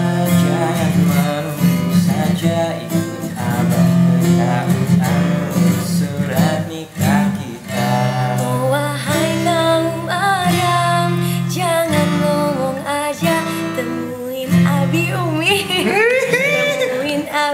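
Acoustic guitar strummed in chords, with a voice singing a song over it.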